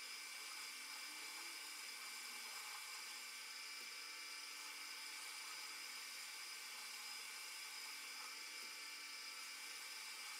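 Manual metal lathe running steadily with a high whine while its tool turns a curved profile on a workpiece and throws off curling chips.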